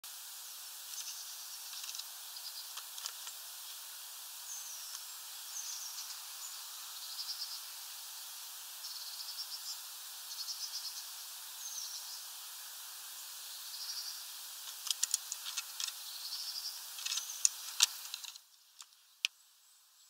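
Short high chirps repeating about once a second over a steady hiss, then a run of sharp clicks and taps on the plastic water dish where a great tit perches. The hiss cuts off abruptly near the end.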